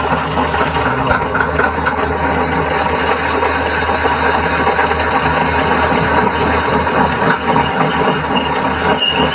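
Metal lathe running steadily with a constant mechanical hum and rattle.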